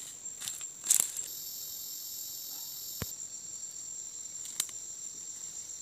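Chorus of forest insects shrilling steadily at a high pitch, with a still higher layer joining for about two seconds. It is broken by a few sharp crackles of footsteps in leaf litter, the loudest about a second in.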